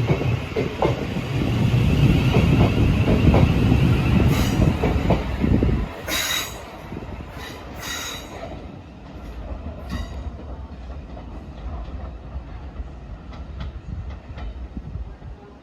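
Electric passenger train running past, with a loud rumble and a high wheel squeal on the rails for the first several seconds. The rumble drops away about six seconds in, leaving a quieter tail with a few sharp clicks.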